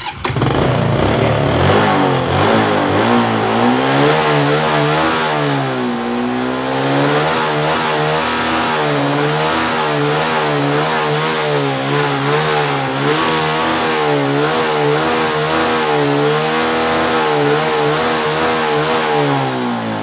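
Suzuki 115cc motorcycle engine catching on the electric starter and running, revved up and down repeatedly, then shut off near the end. It starts now that its weak battery has been charged, showing the no-start was the battery rather than the starter motor or relay.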